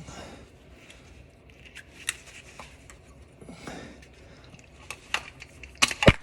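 Scattered metal clicks and knocks from handling a car starter being worked loose, with a few louder clanks near the end.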